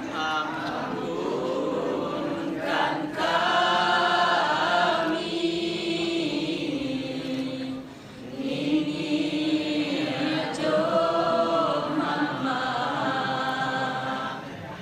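Unison vocal chant in Minangkabau style, sung as long, drawn-out, wavering notes in phrases, with a brief drop about halfway through.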